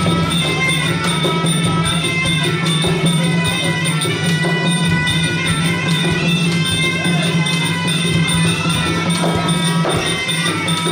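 Traditional Kun Khmer ringside music: a wavering reed-oboe melody over steady drumming and small cymbals, played continuously during the fighting.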